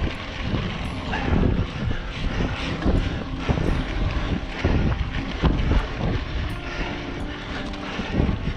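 Mountain bike being ridden along a trail: wind buffeting the microphone and tyres rumbling over the ground, with irregular knocks and rattles from bumps.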